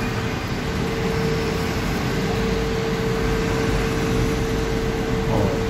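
Steady mechanical hum and hiss with a constant mid-pitched tone.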